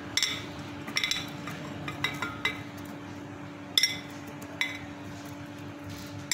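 Glass clinking as banana chunks are tipped from a glass bowl into a glass blender jar: several sharp, separate clinks, most in the first half, over a steady low hum.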